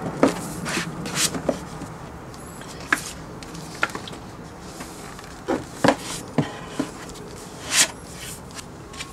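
Glossy magazines being handled and stood upright on a bookshelf: irregular paper rustles and slides with light knocks of the magazines against each other and the shelf.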